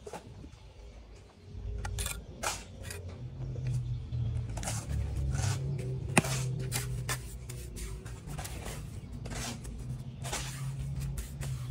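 Steel trowel scraping mortar and tapping hollow clay bricks into place, in irregular short scrapes and knocks, with one sharper knock about six seconds in. A low steady hum sits underneath from about a second and a half in.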